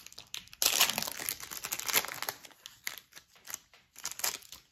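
A Topps Chrome baseball card pack's wrapper being torn open and crinkled by hand: a dense crackle for about two seconds, starting just under a second in, then scattered crinkles and ticks.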